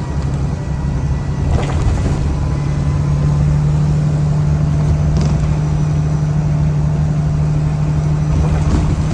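A 2013 Blue Bird All American school bus's engine running with a steady drone that settles to an even pitch about three seconds in.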